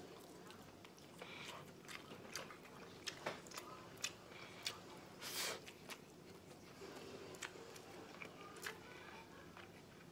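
Faint eating sounds: chewing, with scattered small clicks as fingers work adobo and rice on a ceramic plate.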